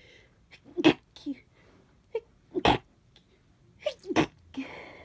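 A person with a head cold sneezing three times, the sneezes about a second and a half apart. Each is a short, sharp burst after a brief catching in-breath, and a breathy inhale follows near the end.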